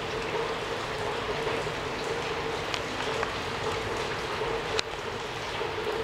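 Steady rain falling, an even hiss with a few sharp drip ticks, the clearest near the end, over a faint steady hum.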